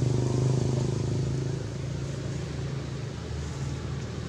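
A motor vehicle's engine running, fading over the first couple of seconds, with a low drone left after.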